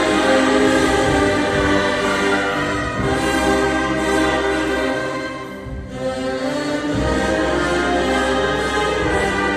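Church orchestra playing a hymn in full, sustained chords, with a choir singing along. There is a brief drop between phrases about six seconds in.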